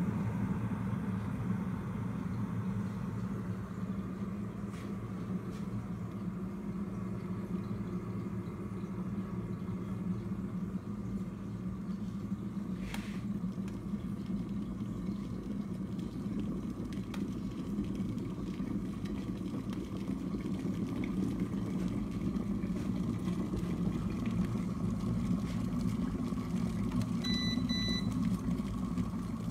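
Glass electric kettle heating water with a steady low rumbling, then a short electronic beep from the kettle near the end.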